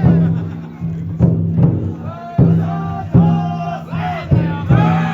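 Futon daiko festival float: the big drum inside it is struck over and over, under the bearers' loud rising-and-falling chanted calls.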